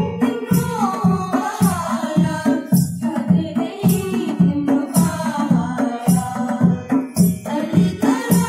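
A group of girls singing a song together, accompanied by tabla keeping a steady beat and a harmonium.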